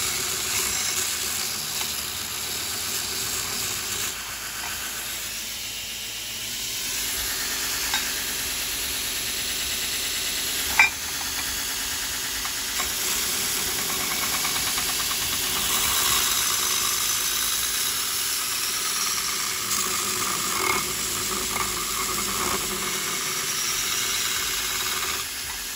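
2x72 belt grinder running, its abrasive belt grinding a welded steel piece with a steady hiss that swells and eases as the work is pressed on. A single sharp click about eleven seconds in.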